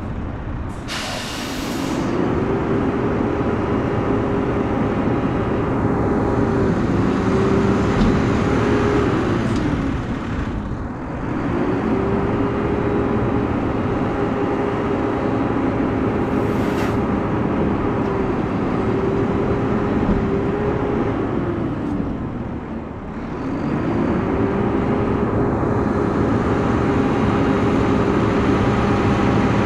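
Front-load garbage truck's engine revving up and holding to drive its hydraulics, then dropping back toward idle, three times over.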